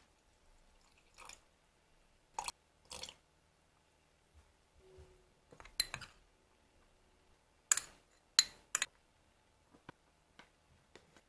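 A trickle of water poured into a glass jar, then a metal spoon clinking and tapping against the glass jar and a glass bowl as flour is spooned in. The clinks are short and sharp, about a dozen in all, the loudest three coming close together about eight seconds in.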